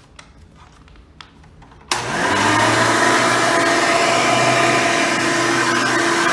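Hoover Elite 350 upright vacuum, fitted with a 7-amp motor and 7-blade fan, switched on about two seconds in after a few light clicks: the motor spins up quickly with a short rising pitch and then runs steadily.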